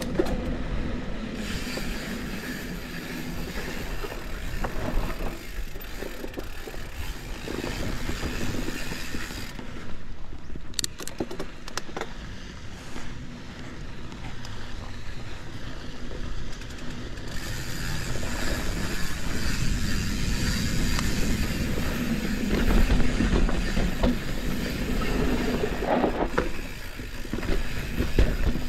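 Santa Cruz 5010 mountain bike ridden on dusty dirt singletrack: a steady rolling noise of the tyres on the dirt, with the bike knocking and rattling over bumps now and then, and wind rumbling on the microphone.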